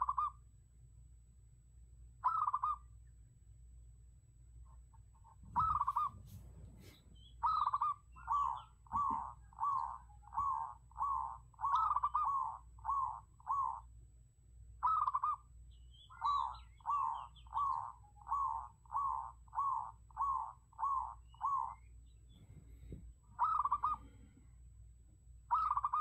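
Zebra dove cooing: single short coos a couple of seconds apart, then two long runs of quick staccato coos at about two a second, and a few more single coos near the end.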